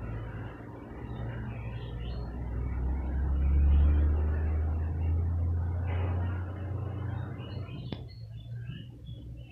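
A low rumble that swells to its loudest about four seconds in and then fades away, with a single sharp click near the end.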